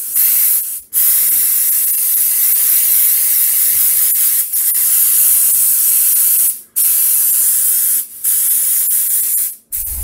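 Airbrush spraying paint: a loud, steady high hiss that stops briefly four times, about a second in, near the middle, a little later, and just before the end.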